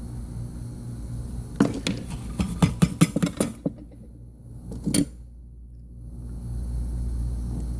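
A quick run of about ten small metallic clicks and clinks, then one more a second or so later, like small tools being handled and set down on a workbench, over a steady low hum.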